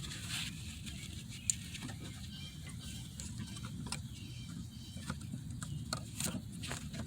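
Scattered light clicks and small plastic taps from handling a wiring plug and its wire, with one sharper click about a second and a half in and more ticks near the end, over a steady low hum.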